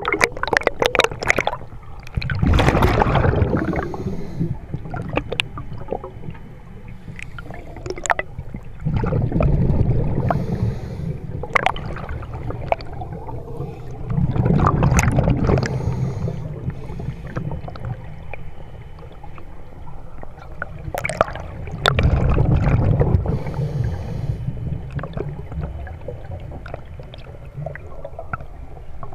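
Underwater scuba breathing: exhaled bubbles from a diver's regulator rumble past four times, every five to seven seconds, each lasting about two seconds. Scattered small clicks and crackles fill the gaps.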